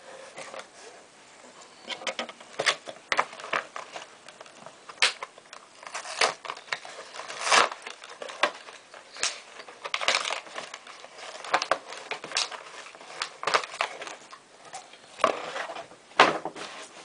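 Plastic model-kit parts and packaging being handled and rummaged through: irregular crinkling and crackling with scattered sharp clicks.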